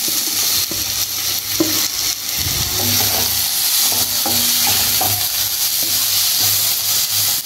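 Chopped vegetables (cabbage, capsicum, tomato, onion) sizzling in hot oil in a kadai, with a steady high hiss, while a wooden spatula stirs and scrapes them around the pan in repeated short strokes.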